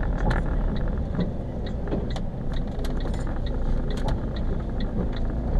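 Inside an Iveco truck's cab: the diesel engine and road noise rumble steadily while the turn-signal indicator ticks evenly, about two to three ticks a second.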